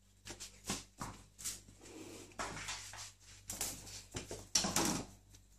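A cat scuffling and tapping about on a tiled floor in play, in short irregular bursts, the busiest a little past halfway.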